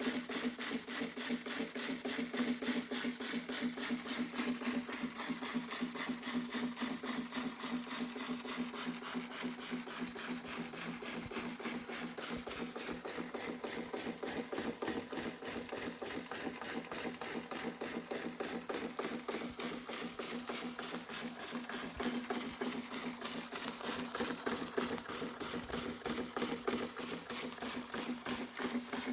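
Märklin 4112/11 spirit-fired toy steam engine running at speed, a fast, even clatter of beats over a steady hum.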